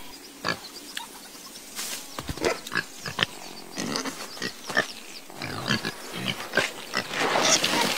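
Cartoon pig sound effects: a string of short pig grunts, coming thicker and louder near the end.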